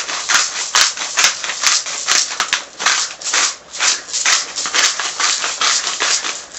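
Hand-twisted salt grinder cracking coarse pink salt crystals, a steady run of short crunching rasps at about two to three turns a second.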